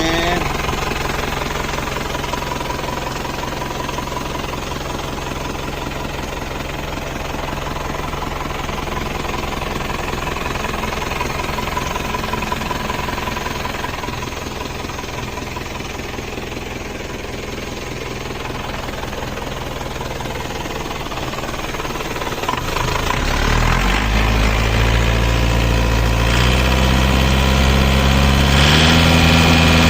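Isuzu Panther's 2.5-litre four-cylinder diesel idling with a steady diesel clatter, then revved up in several steps about two-thirds of the way through, dropping back near the end. The owner presents the engine as healthy, with no blow-by or smoke.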